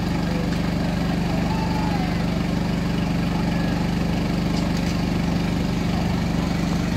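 An engine running steadily at idle, a low even hum.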